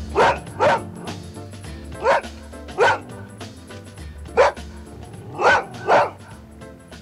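A dog barking about seven times at uneven intervals, each bark short and loud, over steady background music.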